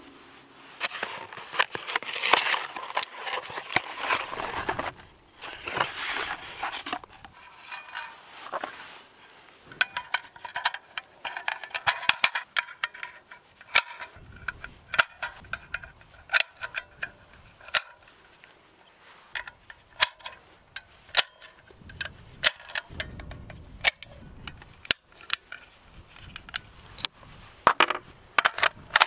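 A cardboard box of .223 cartridges being opened and rustled, then a long run of sharp metallic clicks, about one to two a second, as brass .223 rounds are thumbed one by one into a Ruger Mini-14 rifle magazine.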